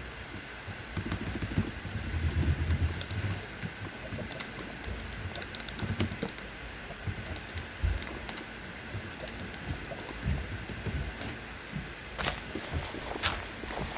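A run of light, irregular clicks and taps, with dull low thumps now and then.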